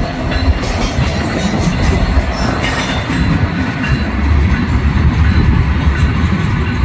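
BNSF freight train rolling slowly through track switches: a steady low rumble, with wheels clacking over the switch joints and an occasional brief squeal.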